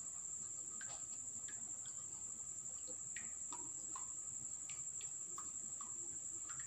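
Liquid surfactant drizzled into a basin of water, making scattered small drips and plops, over a steady high-pitched tone.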